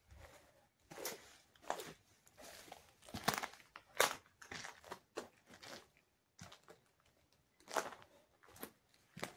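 Footsteps crunching and scuffing on grit and dry debris on a concrete floor, an uneven run of steps with a short pause about two-thirds of the way through.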